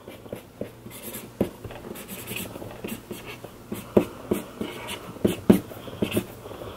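Pen scratching across a photo print as it is signed, in quick irregular strokes, with a few sharper ticks of the pen against the paper.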